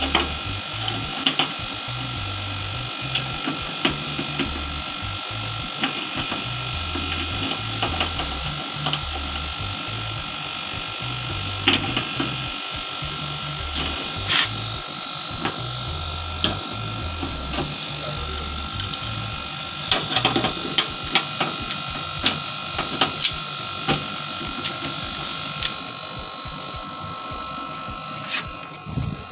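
An adjustable spanner loosens the metal lock-nut cap on a split air conditioner's service valve, giving scattered metallic clicks and taps. Under it runs a steady machine hum with a thin high whine.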